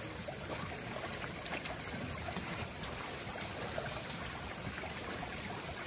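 Small stream running steadily, an even rush of flowing water.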